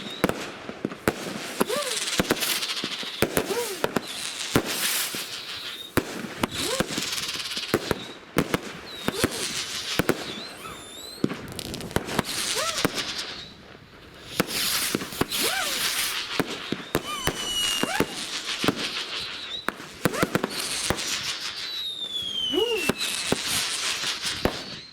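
Firework cake (multi-shot battery) firing a rapid run of bangs with crackling hiss, with short lulls between volleys. There are whistling shots, and falling whistles near the end.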